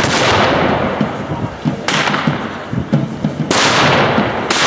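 Four flintlock musket shots with blank charges, irregularly spaced one to two seconds apart, each a sharp crack followed by a long fading echo.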